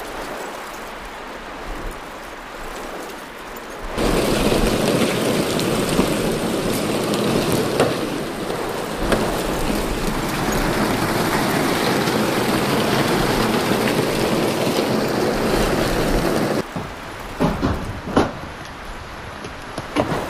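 Hail and rain falling in a storm. About four seconds in, a dense, loud, steady clatter of hail takes over. About sixteen seconds in it drops to quieter rain with separate sharp knocks of hailstones striking.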